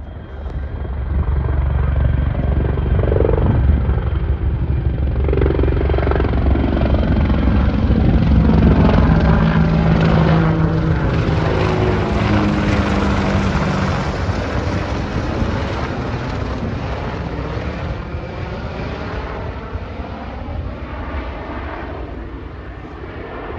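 AH-64 Apache attack helicopter flying low overhead: the rotor beat and engine sound grow louder over the first couple of seconds, the pitch slides down as it passes, and then it slowly fades away.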